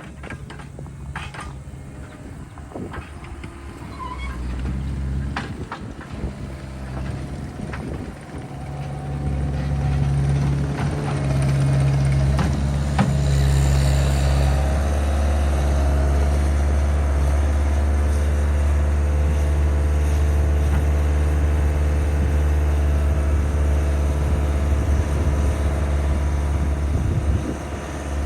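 A heavy machine's engine running, throttling up about nine seconds in and then holding a steady loaded drone, with a few knocks early on.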